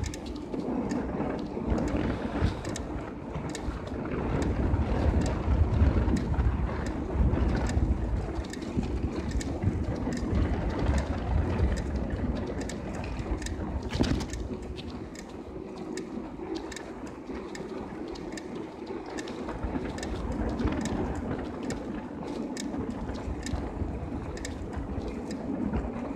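Bicycle riding on asphalt, heard from a camera on the handlebars: wind buffeting the microphone and tyre noise, with frequent sharp clicks and rattles from the bike over bumps, one louder knock about halfway through. The low buffeting eases off for a few seconds past the middle, then returns.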